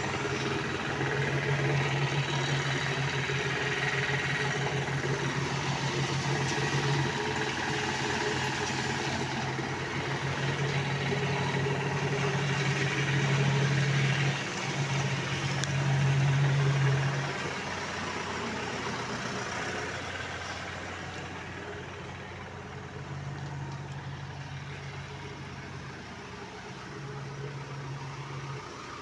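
An engine running steadily at a constant speed, a low hum that eases off and gets quieter after about seventeen seconds.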